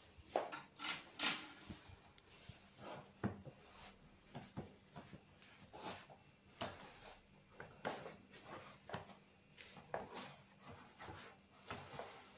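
Irregular soft knocks, scuffs and rustles of running shoes being pulled on and set down on a wooden floor, with a few louder knocks in the first second and a half.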